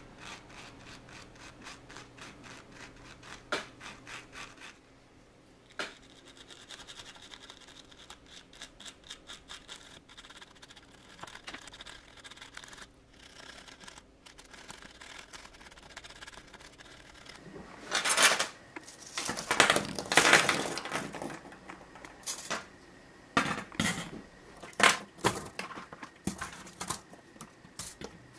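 Watchmaker's tweezers and a steel tool scraping and clicking against a rusted watch rotor, working a rusted-on pinion free. Light clicks and scratches throughout, with louder bursts of scraping and clatter about two-thirds of the way through.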